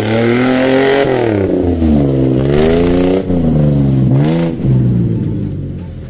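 Off-road 4x4's Toyota V6 engine revving up and down several times as it pushes through mud. About four and a half seconds in, it drops to a lower, quieter steady run.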